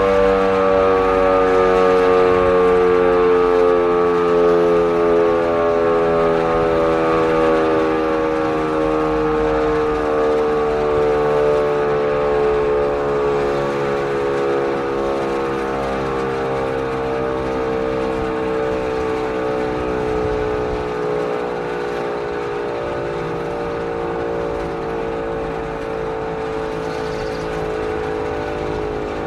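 Auer LS10 electromechanical siren winding down after its test tone, its rotor coasting so that the siren's wail sinks slowly in pitch and fades a little. It is on a long run-down of several minutes, though the uploader suspects a bearing fault.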